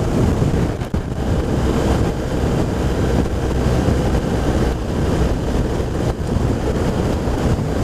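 Wind noise over the motorcyclist's microphone, with a BMW R1200RT's boxer-twin engine running at steady road speed and tyre noise on a wet road.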